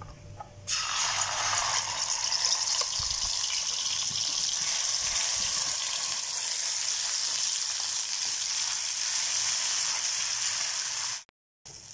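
Wet ground masala paste hitting hot oil in a kadhai and sizzling steadily. The sizzle starts suddenly about a second in and cuts off abruptly near the end.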